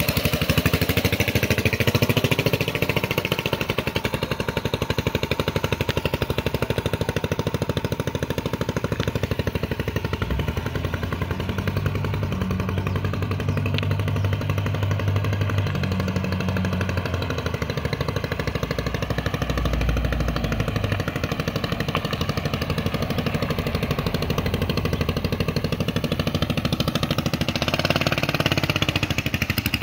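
Small go-kart engine running as the kart is driven, holding a fairly steady note with only small changes in pitch.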